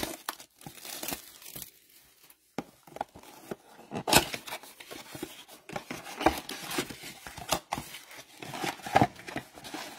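Plastic shrink-wrap being torn and crinkled off a cardboard trading-card blaster box, then the box's cardboard flap pulled open near the end: irregular crackles and sharp ticks, with a short pause about two seconds in.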